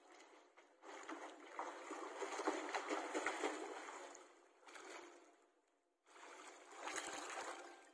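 Water splashing and churning from a swimmer's freestyle arm strokes and kicks in a swimming pool, in uneven surges. It cuts out briefly about six seconds in, then picks up again.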